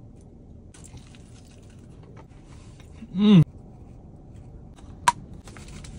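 Light crinkling and clicking of a foil burrito wrapper and plastic sauce cups being handled, with one brief loud pitched sound that rises then falls about three seconds in and a sharp click about five seconds in.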